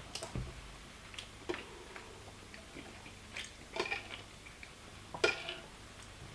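Eating sounds: a few faint, scattered clicks and soft mouth noises of someone chewing, spread irregularly over several seconds.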